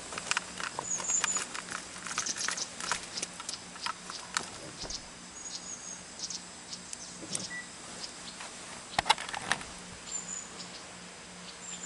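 Raindrops tapping irregularly on an umbrella, scattered single taps with a brief cluster of louder ones about nine seconds in, over a faint steady hiss. A few short high chirps come now and then.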